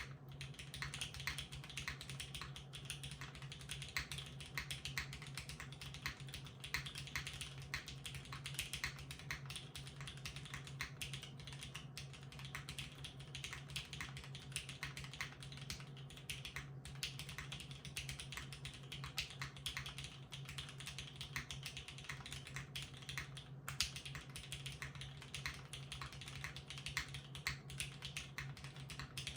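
Continuous typing on a 60% custom mechanical keyboard fitted with broken-in vintage Cherry MX Black linear switches in an aluminium plate, with GMK doubleshot ABS keycaps: a dense, uneven run of key clicks.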